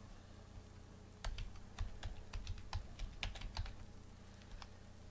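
Typing on a computer keyboard: a quick run of key clicks starting about a second in and lasting a little over two seconds, then a single tap or two near the end.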